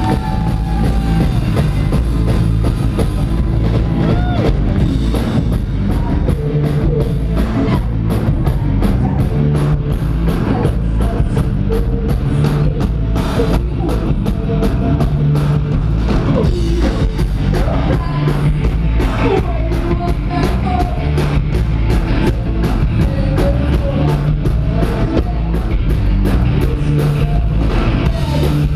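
Live band music through a venue PA: a heavy, pulsing bass line and a drum kit beat, with a voice singing over it.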